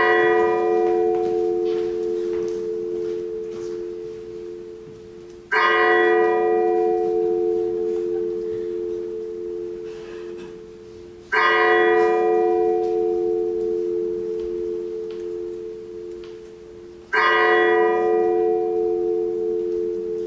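A large bell tolling slowly, struck about every six seconds. Each strike's bright upper ring dies away within a couple of seconds, while a low tone rings on until the next strike.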